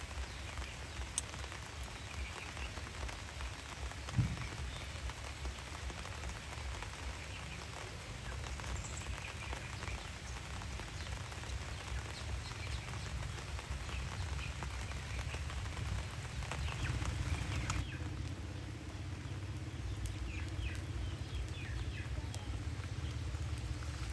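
Steady rain falling, with faint short animal chirps here and there and a single thump about four seconds in. Near the end the hiss thins and a low steady hum comes in.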